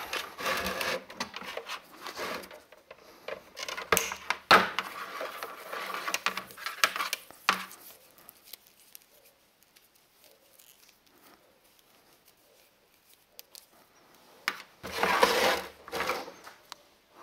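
Handling noises of a desktop calculator and its mains cord on a workbench: irregular knocks and clatter of the case, and rustling as the cord is coiled. Then a quiet spell, and a louder scraping rustle near the end as the calculator is turned face down.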